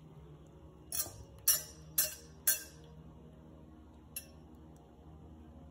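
Kitchenware clinking: four light clinks about half a second apart, each with a short ring, then one fainter clink a little later.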